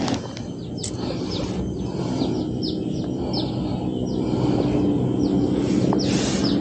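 Bird chirping: short high notes, each sliding downward, repeated roughly every half second, over a steady low hum. A brief rustle comes near the end.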